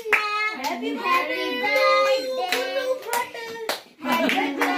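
A group of family voices singing a birthday song together, with hands clapping along throughout and a short break in the singing about four seconds in.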